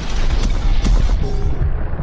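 Added outro sound effect: a deep, loud booming rumble with sweeping whooshes, laid over music.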